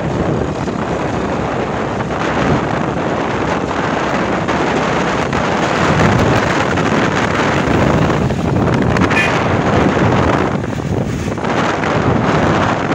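Wind rushing and buffeting over the microphone of a camera moving at highway speed, mixed with steady road noise.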